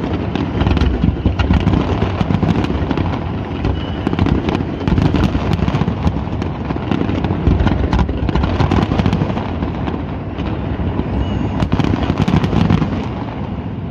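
Fireworks display: a continuous barrage of shell bursts under a dense, rapid crackle of many small sharp pops.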